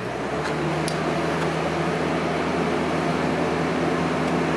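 A steady mechanical hum with a hiss, growing louder right at the start and then holding even, with a couple of faint high clicks about half a second and a second in.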